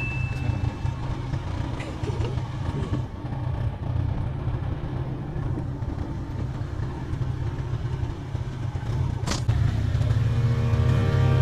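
ATV engine running with a steady low rumble. Near the end there is a sharp click, then music starts.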